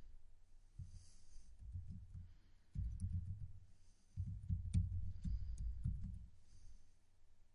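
Typing on a computer keyboard, heard mostly as clusters of dull low thumps with a few sharp key clicks in the middle of the passage.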